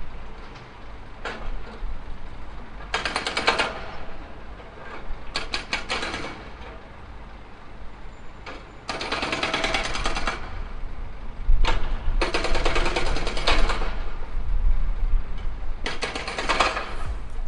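Tractor-mounted hydraulic breaker hammering in five bursts of rapid blows, each lasting one to two seconds, over the low running of the machine's engine, which gets louder about halfway through.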